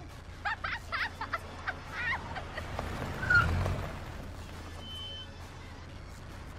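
Street ambience over a steady low hum: a bird chirps several times in the first two seconds, then a passing vehicle swells briefly about three and a half seconds in.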